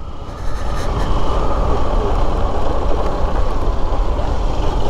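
Steady wind rush on the microphone mixed with motorcycle engine and road noise while riding, a dense low rumble with no distinct engine note standing out.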